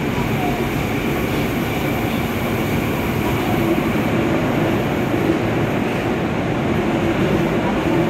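Steady running noise heard from inside a Yokohama Municipal Subway 3000R motor car travelling between stations in a tunnel.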